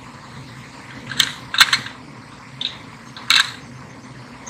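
Sharp clicks and clacks of a fishing knife's interchangeable-blade handle and its plastic and metal parts being handled, a handful of them over about two seconds, the loudest near the end.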